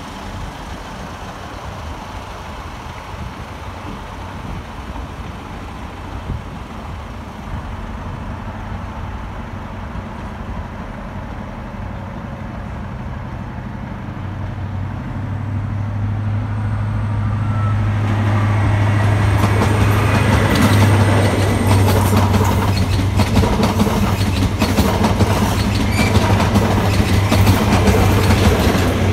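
Diesel trains: a diesel multiple unit's engine running at a distance, then a ScotRail Class 43 HST power car approaching and passing close. From about halfway through its diesel engine grows loud with a steady low drone, and wheels clatter over rail joints for the last ten seconds.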